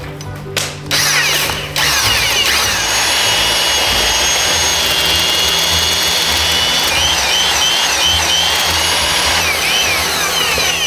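Electric power tool running loud and steady with a high whine. It starts about a second in, and its pitch dips and wavers several times in the second half.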